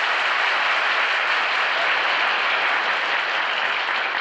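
A large crowd applauding, steady and sustained.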